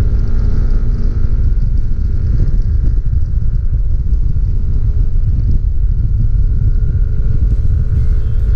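Wind noise on the microphone of a Yamaha NMAX scooter riding at speed, a dense, loud low buffeting with the scooter's single-cylinder engine running steadily underneath.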